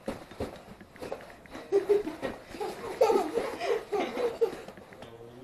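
A young child laughing in short high-pitched peals from about two seconds in, with a few light knocks near the start.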